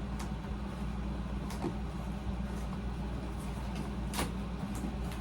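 Steady low hum of a room air conditioner, with a few faint clicks of packaging being handled.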